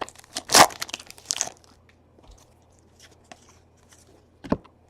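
Trading-card pack wrapper being torn open and crinkled, with a quick run of crackles in the first second and a half. Then faint handling noises of the cards, and one short knock near the end.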